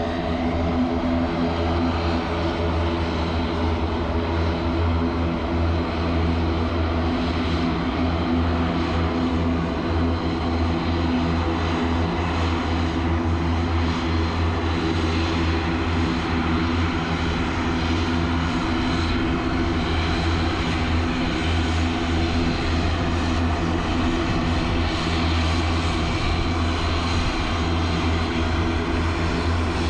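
Dornier 328's twin turboprop engines and propellers running steadily as the airliner taxis after landing, a constant droning hum with no change in pitch.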